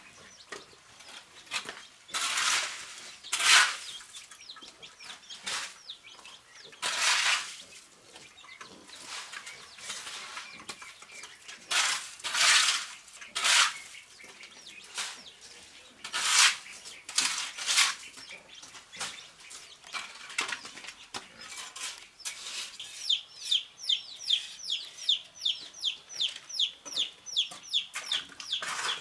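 Chickens on a farm: scattered short, loud rushing or scraping noises among the birds. Near the end comes a fast run of short, high, falling peeps, about three a second.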